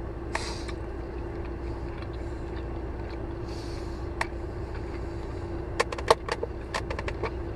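Steady low hum with a constant mid-pitched tone inside a car cabin, with a brief hiss twice and a run of sharp clicks and taps near the end.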